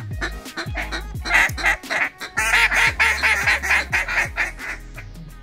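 A rapid run of duck quacking for a few seconds in the middle, over background music with a deep, stepping bass line.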